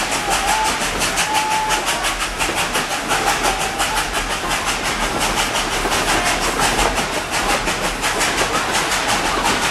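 Passenger train car running along the track, its wheels making a steady, rapid clickety-clack over a continuous rolling rumble. A thin high tone comes and goes in the first few seconds.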